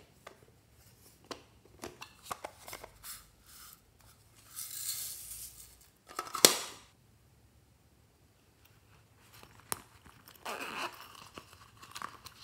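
Small plastic cases being handled and opened: scattered clicks and taps, a rustling stretch about halfway through, then one loud sharp snap just after it, and more rustling and clicks near the end.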